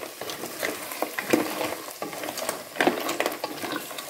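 Wooden spatula stirring clams and other shellfish in an enamel pot, the shells clicking and scraping against each other and the pot over a steady sizzle of soy sauce. The loudest strokes come a little over a second in and again near three seconds.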